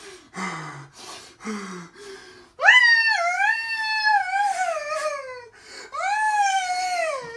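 A man's voice howling in imitation of a rhinoceros's trumpeting. A few short, breathy low grunts come first, then two long, loud, high howls, each rising sharply and then sliding slowly down.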